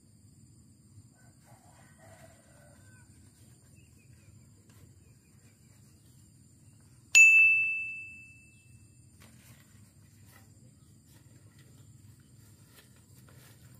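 A single sharp bell-like ding about seven seconds in, ringing out and fading over about a second and a half, over faint outdoor background.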